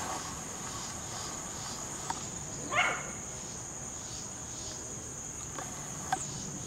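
A steady high-pitched insect chorus with a faint pulse. About three seconds in comes a brief, louder high call that rises and falls.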